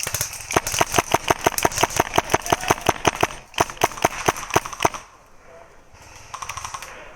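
Airsoft gun firing rapidly, about seven shots a second, in two strings with a short break between them; a fainter rattle follows near the end.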